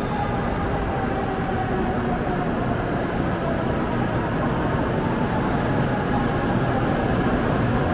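N700-series Shinkansen bullet train pulling into the platform and slowing: a steady rush of air and running noise from the passing cars, with a faint motor whine that falls in pitch as it brakes.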